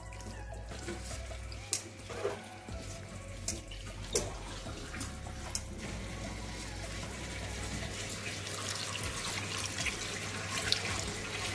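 A hand squishing and mixing small fish with spice paste in a nonstick pan, with a few light clicks, then water poured from a cup into the pan, the pour building over the last few seconds.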